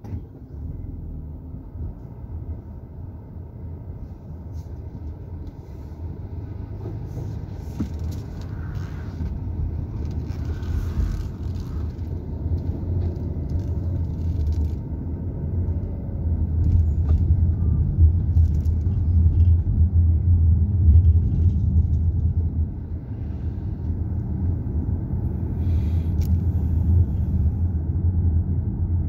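Car driving, heard from inside the cabin: a steady low rumble of engine and road noise that grows louder as the car pulls away from a stop and gathers speed.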